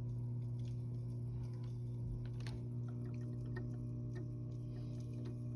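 Top Fin Indulge 3-gallon aquarium's built-in filter pump humming steadily, with faint irregular ticks and water noise over it. This is the noise that persists after the filter was taken apart and cleaned.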